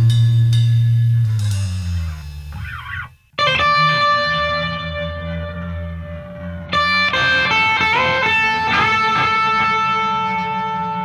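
Rock music with an unaccompanied electric guitar. A low chord rings and fades out, there is a brief silence about three seconds in, and then two chords are struck about three seconds apart and left to ring, with a few bent notes wavering in pitch.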